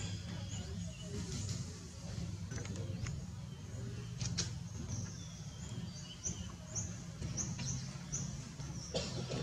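Outdoor ambience: a steady low rumble with short high bird chirps, a run of them repeating about twice a second in the second half, and a few faint clicks.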